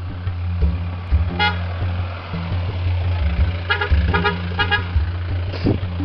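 Vehicle horn honking: one short toot about a second and a half in, then a quick string of four or five honks around the four-second mark, over background music.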